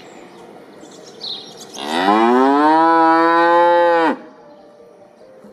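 A young cow mooing once, a single long call of about two seconds that rises in pitch at the start, holds steady, then cuts off suddenly.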